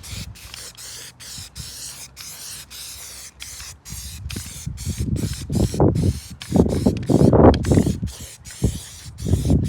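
Aerosol can of stone-chip coating spraying in many short hissing bursts with brief gaps. Low rumbling bursts come in over the second half, louder than the spray.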